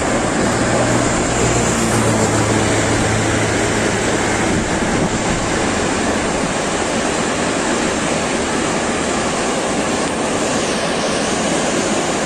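Car-carrier freight train passing close by: a steady rolling rumble and rush of wheels on rail, with a low hum in the first few seconds that fades out.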